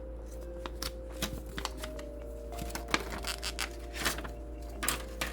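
Scattered clicks and rustles of a smartphone and its packaging being handled, over steady background music.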